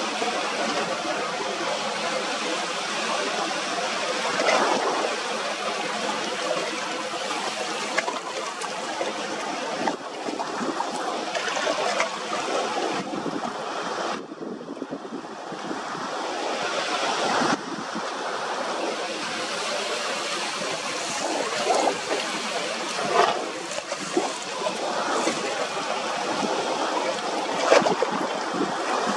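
Sea surf washing and breaking, a steady rush of water with a few brief louder surges.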